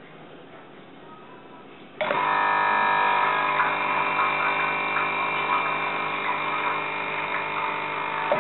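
Espresso machine pump switching on with a sudden steady electric buzz about two seconds in, running evenly, then cutting off abruptly near the end.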